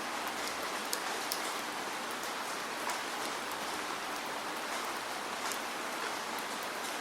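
Steady rain falling, an even hiss with scattered sharp drops striking a surface.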